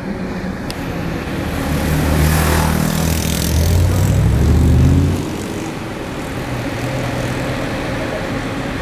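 Ferrari 458 Italia's V8 with a Novitec Rosso aftermarket exhaust accelerating, getting steadily louder to a peak about halfway through, then dropping off suddenly. A quieter car engine runs on after it.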